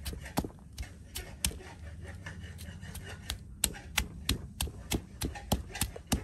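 Stone pestle pounding chilies and garlic in a stone mortar: a run of sharp knocks, about three a second, softer for a second or two midway.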